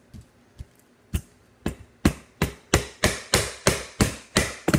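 Hands slapping slime down on a tabletop: a run of sharp smacks, a few scattered at first, then about three a second and louder from about two seconds in.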